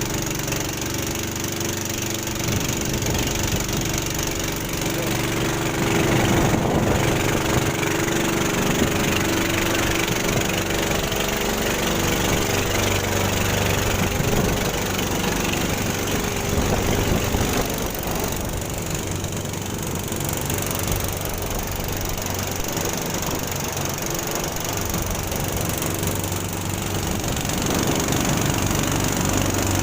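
A motor vehicle's engine running steadily, with a constant drone and rumbling noise from the ride.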